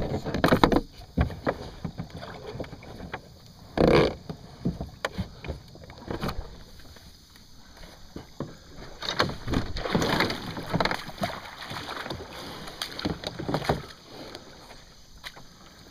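Plastic kayak being hauled out onto a dirt bank: the hull scrapes and bumps over the ground in uneven spells, with sharp knocks near the start and about four seconds in.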